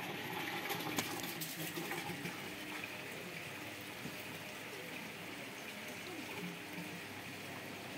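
Indistinct background chatter of a seated gathering over a steady hiss, with a sharp click about a second in.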